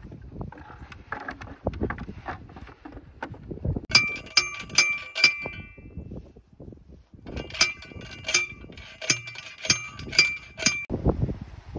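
Manual post driver pounding a steel T-post into the ground: repeated ringing metal clangs, about three a second, in two runs with a short pause between them.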